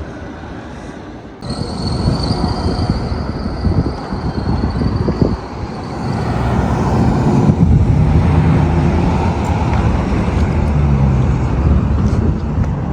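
Loud, steady rumble of road traffic that cuts in suddenly about a second and a half in, with a thin high whine for the first few seconds, and grows louder around seven seconds in.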